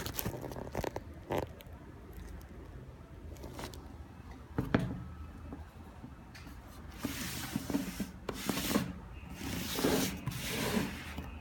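Hands handling a knit sneaker, the tissue paper inside it and its cardboard shoebox: intermittent rubbing and rustling, a few short scrapes at first, then longer stretches of rubbing in the second half.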